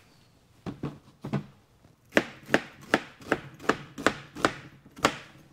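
Chef's knife slicing a red onion and knocking on a plastic cutting board: two scattered cuts, then from about two seconds in a steady run of about three chops a second that stops near the end.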